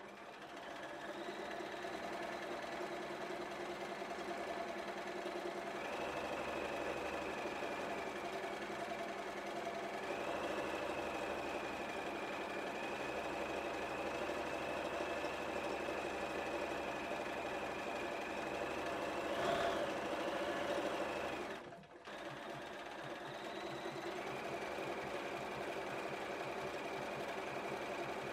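Bernina 1230 sewing machine stitching through fabric, running steadily with a high motor whine. The whine rises briefly, then the machine stops about 22 seconds in and starts sewing again.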